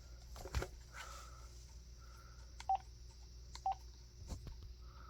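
Cordless phone handset key beeps while its menus are stepped through: two short single-pitch beeps about a second apart, with a few faint clicks of its buttons being pressed.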